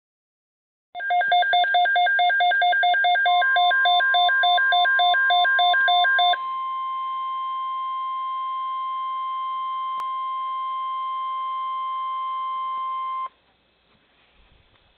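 Midland WR-100 weather radio's alert beeping in a rapid pulse, about three beeps a second for about five seconds. A steady single-pitch NOAA Weather Radio warning alarm tone (the 1050 Hz tone) joins about two seconds into the beeping, holds on alone for about seven seconds after the beeps stop, and cuts off abruptly. It is signalling an incoming tornado watch.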